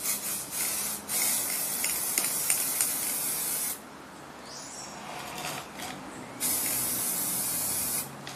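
Aerosol spray-paint can hissing in bursts as paint is sprayed onto a cement pot: a short spray, then a longer one of about two and a half seconds, and after a pause of nearly three seconds another of about two seconds.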